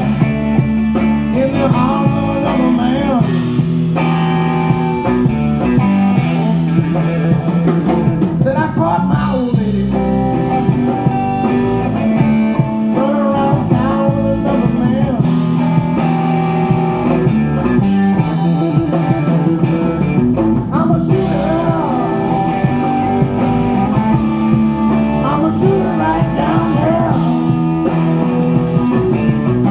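Live blues-rock band playing through loudspeakers, a guitar lead bending notes over a steady accompaniment.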